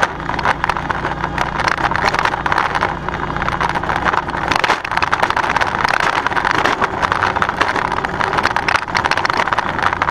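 48-inch Brinly tow-behind spike aerator rolling over a bumpy lawn, its steel star tines and frame clattering and rattling without a break, over the low drone of the John Deere X739 lawn tractor's engine, which grows weaker about four seconds in.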